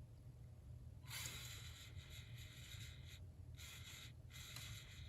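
Lego Technic Volvo A60H articulated dump truck's electric motors and plastic gearing whirring faintly as it climbs a steep 28-degree ramp, in three short runs with brief stops between them.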